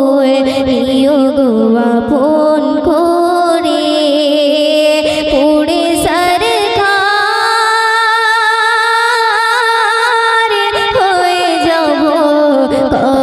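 A young female singer performing a Bengali gojol (Islamic devotional song) into a microphone, amplified, with wavering ornamented phrases and one long held note about halfway through.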